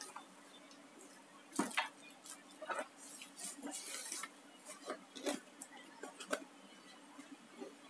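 Plastic bubble-wrap packaging and a small cardboard box being handled, with short crinkling rustles and scattered sharp clicks and taps as the parts inside knock together; the rustling is densest about three to four seconds in.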